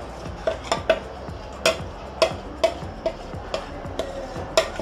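A metal spoon clinking and scraping against a ceramic bowl while scooping out a thick yogurt mixture, about two sharp clinks a second at an uneven pace, each ringing briefly.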